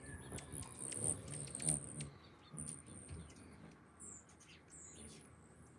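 Hummingbirds chirping at the feeders: a rapid run of thin, very high chirps, with a couple of short downward-sliding notes about four and five seconds in.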